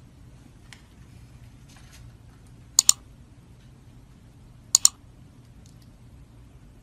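Two sharp double clicks, about two seconds apart, over faint steady room noise.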